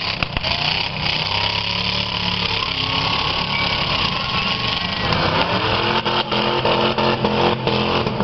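V8 demolition derby car engine revving hard while its tyres spin in a smoky burnout, the engine note rising and falling. Several short sharp knocks in the second half.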